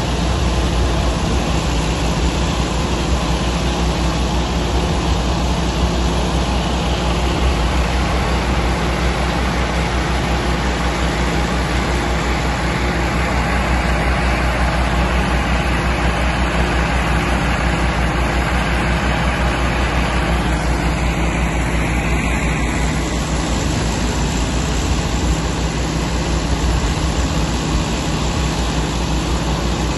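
Massey Ferguson 385 tractor's four-cylinder diesel engine running steadily under load, driving a wheat thresher, with the thresher's steady rush of noise as straw is fed through and blown out.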